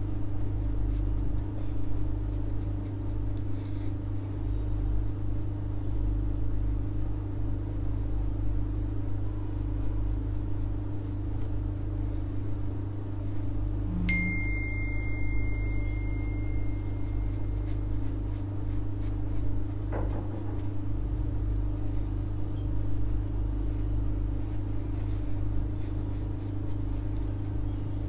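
Steady low hum of room noise with no speech. A thin high tone sounds briefly about halfway through.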